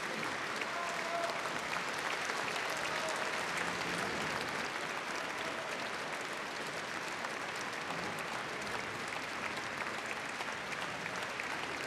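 Large concert-hall audience applauding, a dense, steady clapping of many hands.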